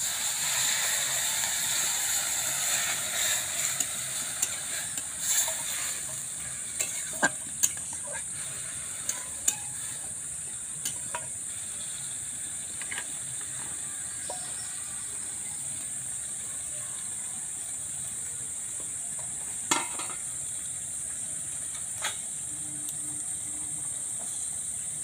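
Water poured into a hot wok of grated papaya fried in mustard oil, sizzling loudly for the first few seconds, then settling into a steady hiss as it heats. Scattered sharp clicks over the hiss.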